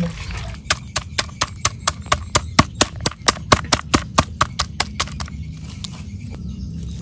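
A wooden stick pounding small crabs against a wooden board, crushing them. The knocks are sharp and regular, about four or five a second, and stop about five seconds in.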